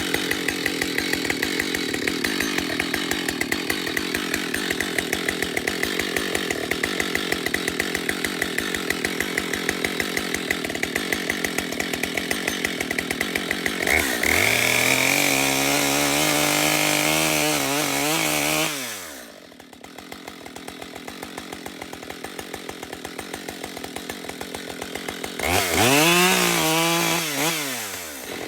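Husqvarna 572 XP two-stroke chainsaw with a 24-inch bar idling with an even ticking beat. About halfway through it revs up to high speed for around four seconds, then drops back to idle, and it revs up and winds down again briefly near the end.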